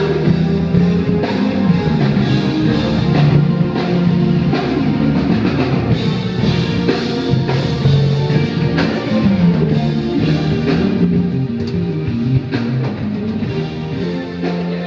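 Rock music with a drum kit keeping a steady beat under guitar.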